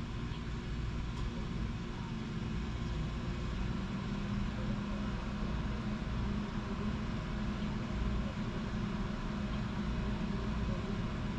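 A car engine running steadily at idle, with a low, even hum and no revving.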